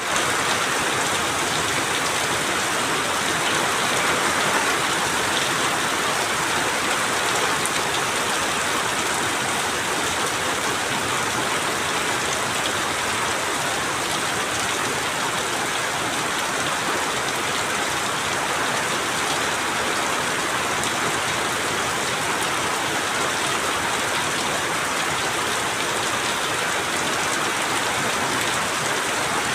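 Steady rainfall, a continuous even hiss of drops hitting surfaces, without pauses or changes in strength.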